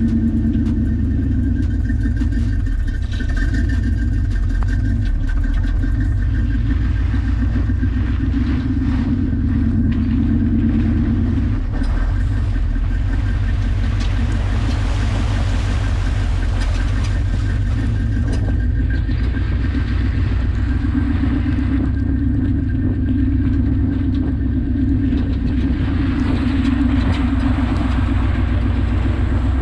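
Jeep CJ-7's engine running steadily under load as it drives an off-road trail, a continuous drone with scattered knocks and rattles from the rough ground.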